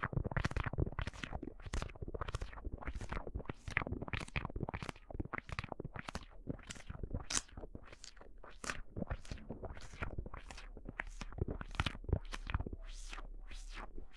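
Close-microphone ASMR trigger sounds: a quick, even run of short handling or rubbing strokes, about two a second, passed through an added audio effect.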